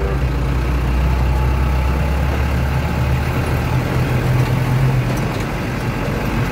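Truck engine running steadily while driving, heard from inside the cab as a low drone with road noise.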